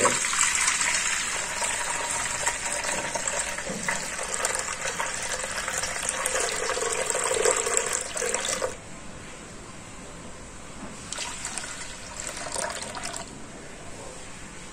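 Potato water poured in a steady stream from a plastic tub into a stainless steel pot, splashing into the pot as it is decanted off the settled potato starch. The pour stops about nine seconds in, leaving only a few faint trickles.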